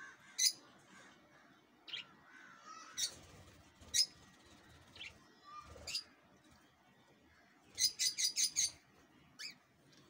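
Cockatiels chirping: short, sharp calls about once a second, then a quick run of five chirps near the end.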